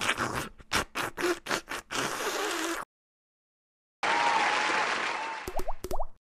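Animation soundtrack effects: a rough, choppy noise with quick uneven strokes, cut off abruptly into a second of dead silence, then a short burst of applause-like crowd noise from the group of characters.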